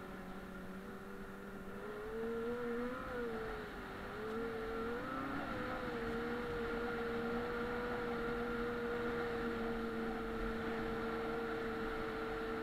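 Snowmobile engine running under way, its pitch climbing about two seconds in, dipping briefly around four seconds, then holding steady.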